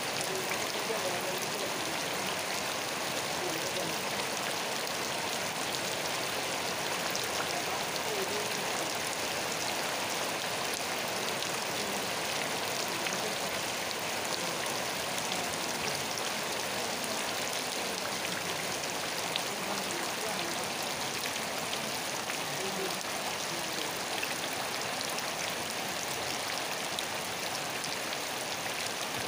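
Steady rain falling, an even hiss dotted with many small drop impacts.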